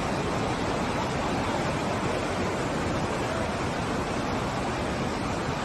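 Fast, muddy floodwater rushing in a steady, unbroken roar.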